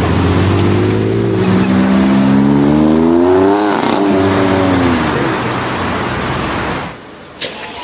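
High-performance car engine accelerating hard: its pitch climbs for about two seconds, drops at an upshift and climbs again, then the sound falls away abruptly about seven seconds in.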